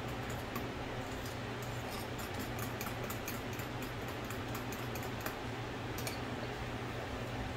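Spoon stirring a thick mayonnaise-based dressing in a ceramic bowl, with quick light ticks of the spoon against the bowl's side, over the steady hum of a kitchen fan.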